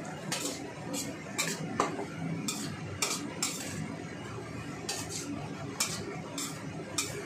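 Metal spatula scraping and clinking against a stainless steel wok while vegetables are stir-fried, with a low sizzle underneath. The sharp clinks come at irregular moments, about a dozen in all.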